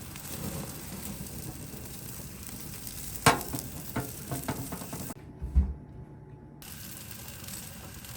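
Food sizzling steadily on the heat, with a few sharp clicks of utensils about halfway through and a low thud a little later.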